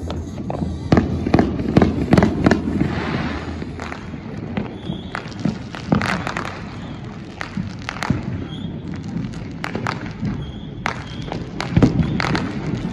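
Fireworks going off in a rapid, irregular string of bangs and pops, thickest about a second or two in and again near the end.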